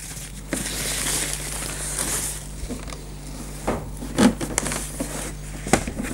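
Protective wrapping sheet rustling and crinkling as it is pulled down off a label printer, with a few sharp knocks in the second half as the printer is handled.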